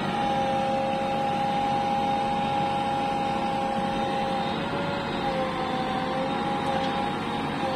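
JCB 3DX backhoe loader's diesel engine running steadily under work while loading gravel, with a steady whine on top that wavers slightly after the midpoint.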